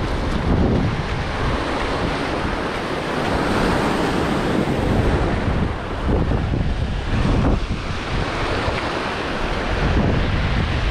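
Ocean surf breaking and washing up a coral-rubble beach in rough water, in swelling surges, with wind buffeting the microphone.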